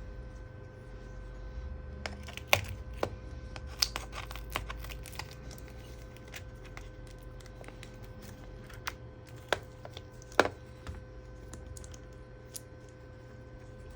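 Scattered sharp clicks and taps of hand tools and hands against the MacBook Pro's case while its glued battery is worked loose from the adhesive. The clicks come thickest a few seconds in, with the single loudest one about ten seconds in.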